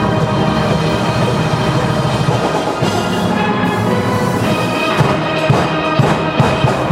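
Steelband playing: a full steel orchestra of tuned pans carrying a melody over a steady beat of bass pans and rhythm-section drums.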